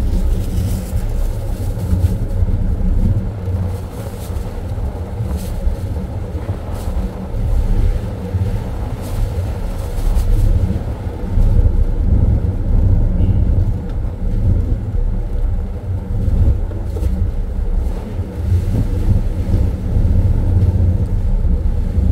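Wind buffeting the microphone in an irregular low rumble that swells and falls, over a steady low hum of the ship's machinery.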